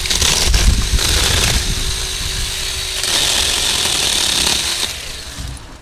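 Small 6-inch battery-powered chainsaw running and cutting through thick blueberry bush stems. The noise stops about five seconds in.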